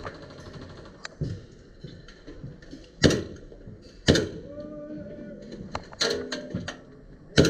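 Two sharp shots from an upgraded Hi-Capa gas blowback airsoft pistol, about a second apart, with a few fainter clicks and taps around them.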